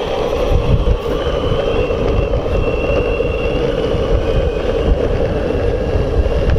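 Boosted Board Stealth electric skateboard running fast in hyper mode on asphalt: a steady rolling noise from the wheels with heavy wind buffeting on the microphone and a faint high whine over it.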